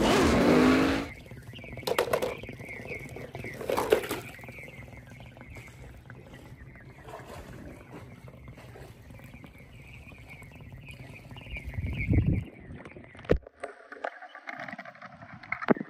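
Muffled underwater sound from a camera held under a swimming pool's surface: a steady water hiss broken by a few knocks and splashy thuds, the last ones near the end. The first second carries the tail of an animated film's car-drift soundtrack, with an engine and music.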